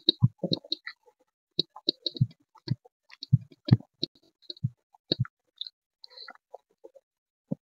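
Close-miked mouth sounds of eating soft khichdi by hand: wet chewing and lip smacking, heard as irregular sharp clicks and soft low thumps several times a second, thinning out near the end.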